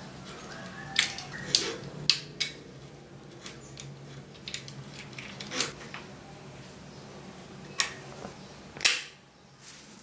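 Scattered sharp clicks and ticks of hand work on a bicycle's front derailleur cable, over a low steady hum. Near the end comes the loudest single snap, the cable cutter snipping through the steel inner cable.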